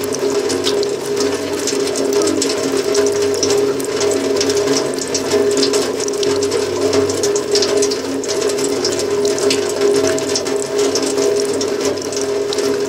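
A steady drone at a few held pitches with a dense, rapid clicking rattle over it.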